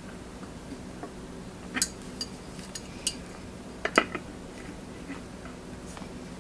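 Metal clinks and ticks from a socket handle and socket turning a brass pipe fitting on a steel pressure-tank lid. Sharp separate clicks with a quick run of small ticks in the middle, the loudest clink about four seconds in.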